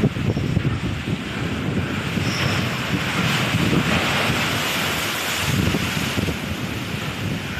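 Strong westerly gale buffeting the microphone over the rush of heavy seas against a ship's hull. Around the middle a wave breaks over the deck in a swell of hissing spray, and seawater then washes across the deck.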